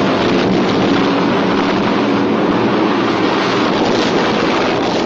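Steady, loud rumbling roar of a large explosion, slowly dying away.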